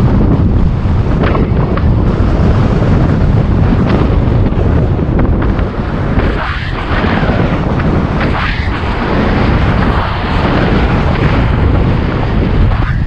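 Heavy wind buffeting the microphone of a camera carried on a bicycle at riding speed, with a steady low rumble and a few swells of rushing noise about halfway through.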